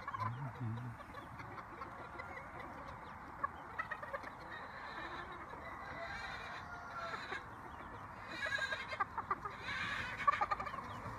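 A flock of brown Leghorn chickens clucking, with many short calls overlapping, busier about two-thirds of the way through and again near the end.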